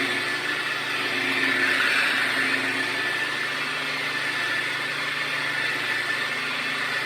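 Electric paint polisher running steadily on a car's painted panel, buffing out fine sanding scratches with water-thinned polish.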